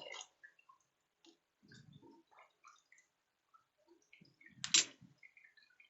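Scattered light clicks and taps of things being handled, with one sharper, louder knock about four and a half seconds in.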